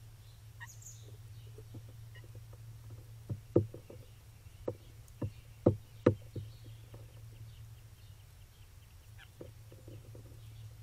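Blue jay knocking at a feeder right by the camera: a cluster of about six sharp knocks in the middle, with fainter taps before and after. A steady low hum runs underneath.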